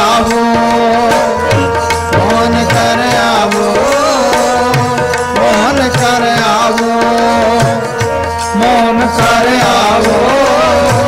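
Sikh kirtan music: harmoniums holding a steady melody over a tabla rhythm, with a voice sliding through sung phrases above them.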